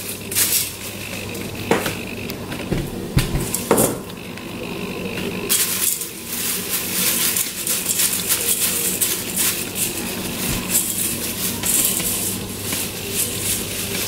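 Hands stirring a dry mix of puffed barley, puffed rice, oats, nuts and dried fruit in an enamel bowl: a dry rustling and rattling of grains against the bowl. There are a couple of light knocks in the first few seconds, and the rustling gets busier from about halfway through.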